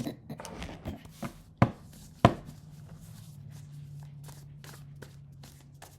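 A few sharp taps and clicks of something being handled, the two loudest about a second and a half and two seconds in, followed by a low steady hum.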